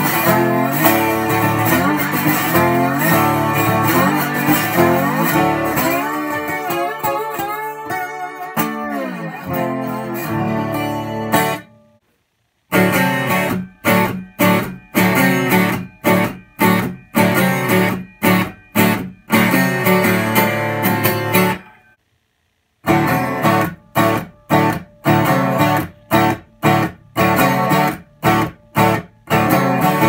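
Twelve-string acoustic guitars tuned to open D. First a Martin D12X1 rings continuously, slid with a slide so its chords glide in pitch. After a short silent break, a Seagull S-Series S12+ is strummed in short, separate chord strokes. After another short silence the Martin is strummed in separate chords again.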